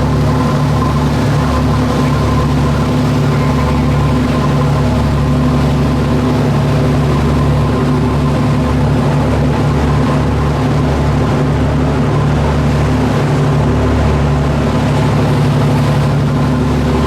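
A fishing boat's motor running steadily, a constant low hum with an even rushing noise over it.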